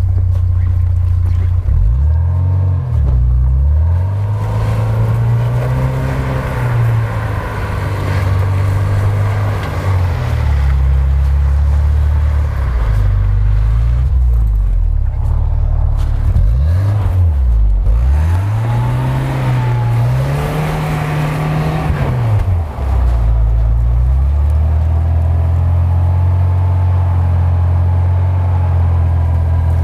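A UAZ Patriot's engine revving up and down again and again under load as it tries to climb a steep snowy hill. It settles to a steady run about three quarters of the way through.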